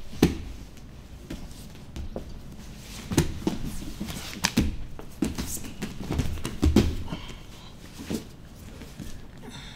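Two grapplers moving against each other on foam mats: irregular soft thuds and scuffs of knees, hands and bodies landing and sliding on the mat, the sharpest one right at the start.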